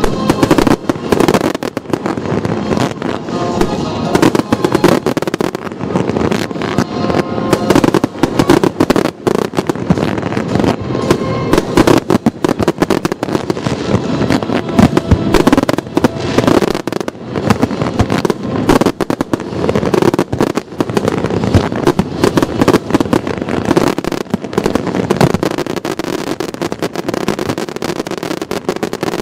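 Fireworks display firing continuously: a dense, rapid crackle and popping of aerial shells and comets with no pause, with music playing along underneath.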